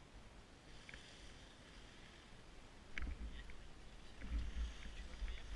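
Skis setting off and sliding over packed snow, starting about three seconds in, with wind rumbling on the camera's microphone as speed builds. Before that it is faint, with a few light clicks.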